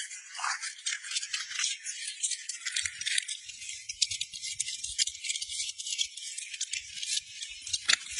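Water spray washing a heavily mud-caked vehicle: a dense, crackling hiss full of tiny rattling spatters.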